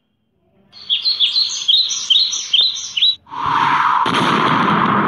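Cartoon tweeting-birds sound effect: a quick run of about eight short, falling high chirps, the comic cue for a character knocked dizzy or fainting. About three seconds in it gives way to a loud, steady rushing noise.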